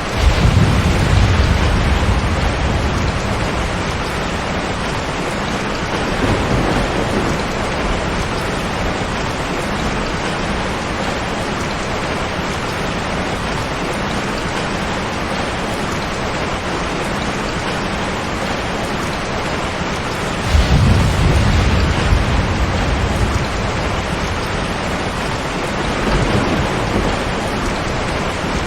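Heavy rain falling steadily on a tin roof, with thunder rumbling in: a strong peal right at the start and another about twenty seconds in, and two fainter rumbles between.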